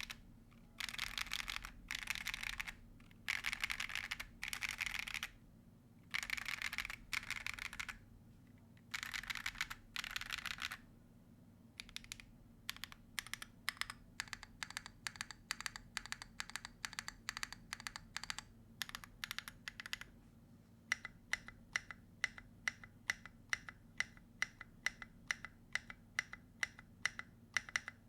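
Typing on a gasket-mount M1W mechanical keyboard with a polycarbonate plate, Akko Yellow linear switches and SA keycaps. It starts with short bursts of very fast typing with brief pauses between, then runs into quick separate keystrokes, and in the last seven seconds or so slows to single, louder key presses about two to three a second.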